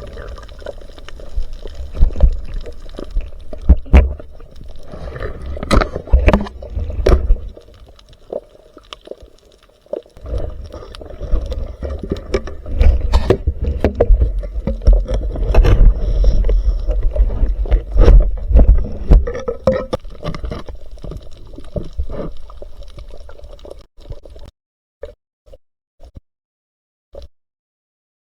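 Water gurgling and sloshing with a rough low rumble and many sharp knocks and plops; a brief lull near the middle, then it drops to near silence near the end, broken by a few short blips.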